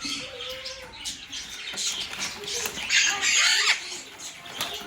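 Several pet parrots squawking and chattering, with one loud, harsh squawk about three seconds in.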